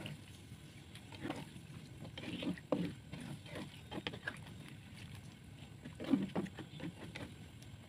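A spatula stirring a coconut-milk vegetable stew in a nonstick wok: liquid sloshing, with several scrapes and knocks of the spatula against the pan.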